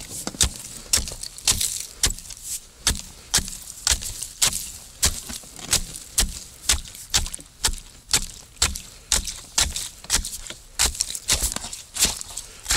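A steel ice chisel (pick) on a wooden handle striking lake ice over and over, about two blows a second. Each blow is a sharp, crisp chop as it chips out a hole in the ice.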